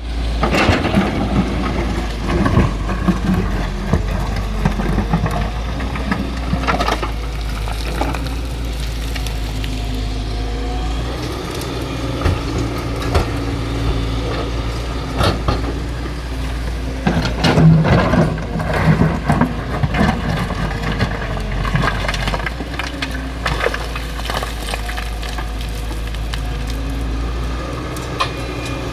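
Excavator's diesel engine running steadily under load, with repeated knocks, cracks and crunches from the digging work, a cluster of louder ones a little past halfway.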